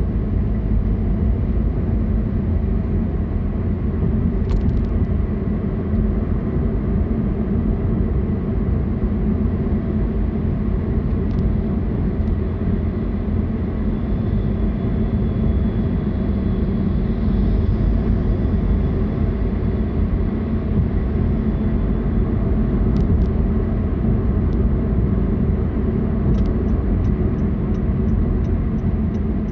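Car on the move: a steady, even rumble of road and engine noise. Near the end comes a quick, evenly spaced run of light ticks.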